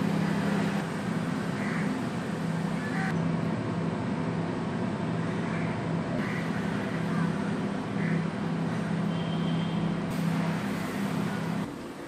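LG microwave oven running with a steady low hum while it heats a bowl of water and vinegar. The hum stops just before the end as the cycle finishes.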